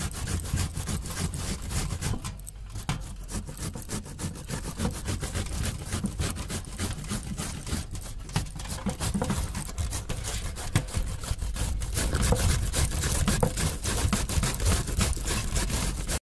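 Bottle gourd being grated on stainless-steel graters over a steel plate, a fast run of rasping scrape strokes from two graters at once. It cuts off abruptly near the end.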